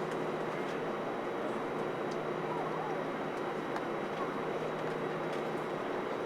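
Airbus A320 cabin noise heard from inside the cabin: a steady hum of jet engines and air conditioning with a constant droning tone, holding level throughout, with a few faint ticks.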